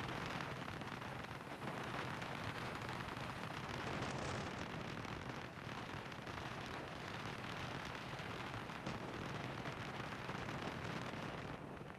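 Steady rush of wind over the microphone on a moving motorcycle, easing a little near the end.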